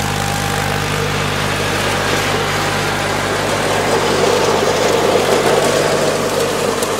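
Simplicity Power Max garden tractor's engine running steadily while driving a rear-PTO Mott flail mower through overgrown brush. A rushing, whirring noise from the flails and cut vegetation swells as the mower passes close about four seconds in, then eases off.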